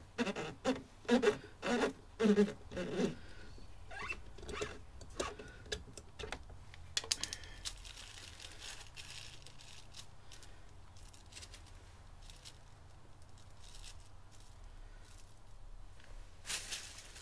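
Hand tools and fasteners being worked on a motorcycle's lower fairing panel. A quick run of rhythmic strokes for the first few seconds gives way to scattered light clicks and scrapes, with a short scraping rush near the end.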